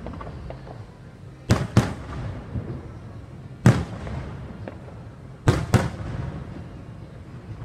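Aerial firework shells bursting overhead: five sharp booms, a quick pair, then a single, then another quick pair, with a low rumble running between them.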